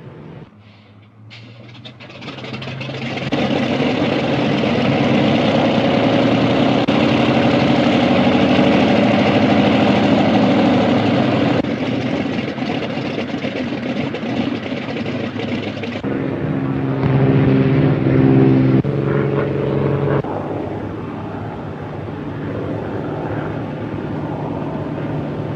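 Propeller aircraft's piston engine running loudly, swelling up about two seconds in, with its pitch shifting and a few abrupt changes in tone.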